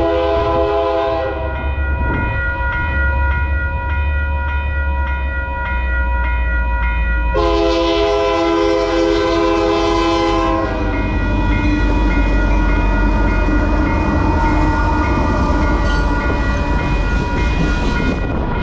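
A freight train's diesel locomotive sounds its multi-note air horn, first a blast that ends about a second in, then a second blast of about three seconds in the middle. The heavy, steady rumble of the passing train runs underneath.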